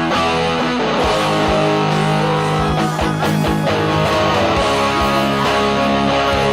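JV Custom electric guitar played through an amplifier with distortion: sustained distorted chords and melody notes, with string bends about three seconds in.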